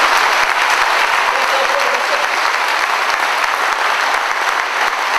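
A rally audience applauding, loud and steady.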